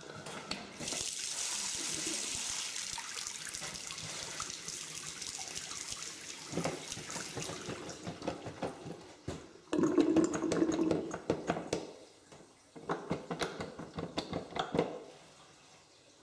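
Water running from a push-top self-closing washbasin tap into the sink for several seconds, the flow dying away as the tap shuts itself off. Then a run of irregular plastic clacks and knocks as the buttons of a wall soap dispenser are pressed.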